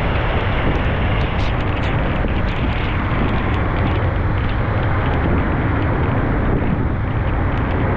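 Steady low rumble and hiss of a vehicle driving, with faint scattered ticks and no change in level.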